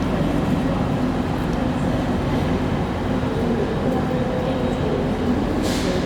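A passenger train at a station platform, its engine and running gear giving a steady low rumble with a faint hum, and a short hiss near the end.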